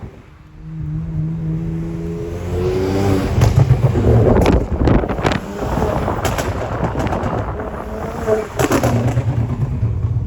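Remapped car with hybrid turbos revving and accelerating: the engine note rises, then several sharp exhaust pops and bangs crack out over the running engine, from its selectable pops-and-bangs map.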